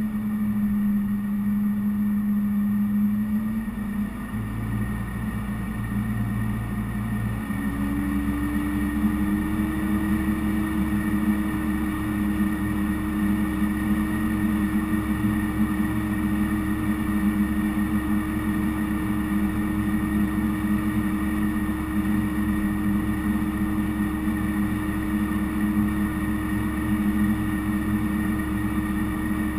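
Case IH Magnum 315 tractor's diesel engine running, heard from the cab roof; its speed steps up twice in the first several seconds, then holds a steady drone as the tractor moves along.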